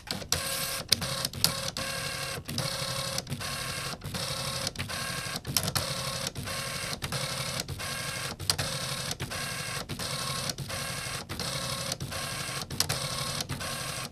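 Dot-matrix printer printing line after line on tractor-feed paper. The head buzzes across each line, with a short sharp click at each line change, about every half second.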